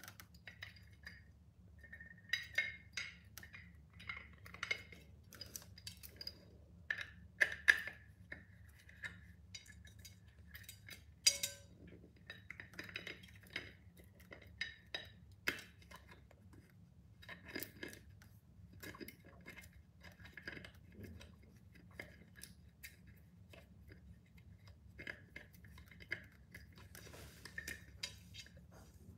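Metal scissors clicking and scraping on the screw at the centre of a tempered glass pot lid, with small clinks of metal on glass, as the lid handle is screwed on by hand. Irregular taps, with a few sharper clicks.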